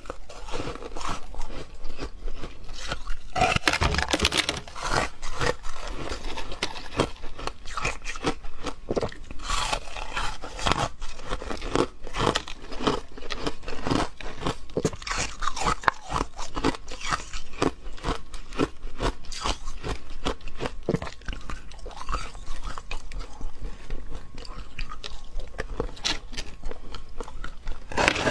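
Hard frozen ice being bitten off a block and chewed: a dense, irregular run of crisp crunches and cracks.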